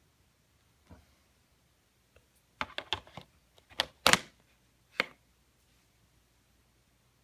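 A quick cluster of sharp clicks and knocks, with a double knock near four seconds in as the loudest and a last single knock at five seconds.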